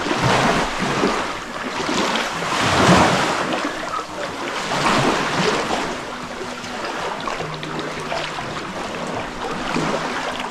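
Small sea waves washing over a shallow, rocky shoreline, the wash swelling and falling back every couple of seconds, loudest about three seconds in.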